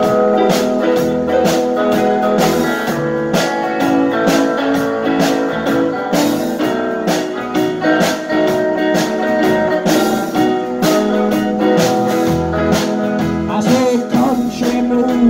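Live rock band playing without vocals: electric guitar and electric bass over a drum kit keeping a steady beat, with keyboard.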